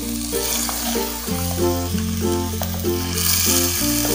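Chicken with tomatoes and yoghurt sizzling in a clay handi while being stirred with a wooden spoon. Background music plays over it, with sustained bass notes that change twice and short repeated notes above them.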